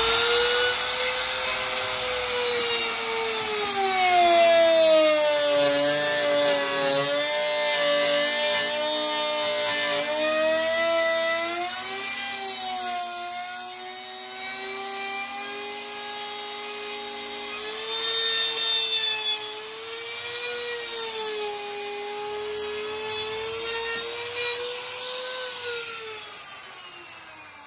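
Compact trim router running and cutting a groove in wood, one of several shallow passes. Its high whine wavers, sagging and recovering as the bit loads and frees in the cut.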